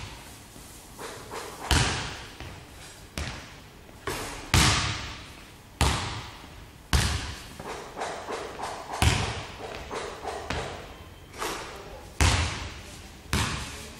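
Basketball bouncing on a wooden gym floor at roughly one bounce a second, each bounce a sharp thud that echoes around the empty hall.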